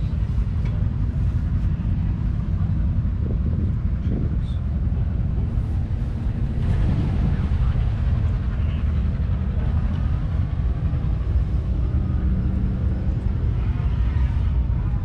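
Big Four 20 tractor's engine running steadily, a continuous low rumble with a fast, even pulse.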